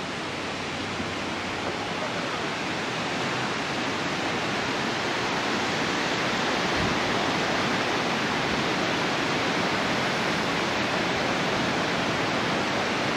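Steady rush of water, growing a little louder over the first few seconds and then holding even.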